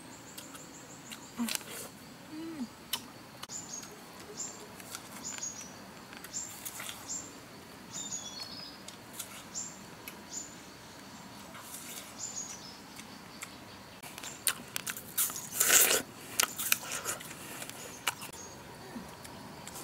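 Forest ambience: a bird gives a run of short, high chirps, repeated about every half second for several seconds, over a faint steady high tone. Near the end comes a cluster of sharp clicks and rustles, the loudest about three-quarters of the way in.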